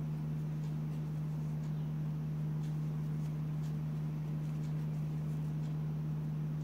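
A steady low hum that holds one pitch throughout, with a few faint soft ticks from the crochet hook and yarn being worked.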